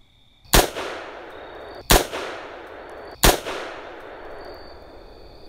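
DiamondBack AR-15 rifle in .223 firing three shots a little over a second apart, each crack followed by a long fading echo.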